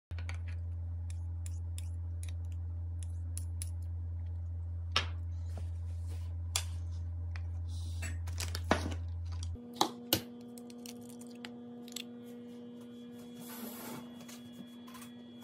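Scattered light clicks and taps of small kitchen items such as a metal spoon and a jar handled on a countertop, over a steady low hum. About two-thirds of the way in, the low hum stops abruptly and a fainter, higher-pitched steady hum takes its place.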